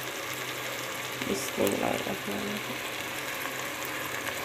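Chicken, onions and tomatoes frying in oil in a cooking pot, a steady sizzle. A brief louder sound breaks in about a second and a half in.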